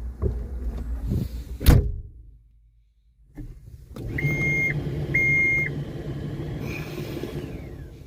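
John Deere 324 skid steer's cab electrics switching on without the engine starting: a steady fan hum and two short electronic beeps about a second apart from the keypad ignition, which needs a code before it will start. Before that, a sharp knock.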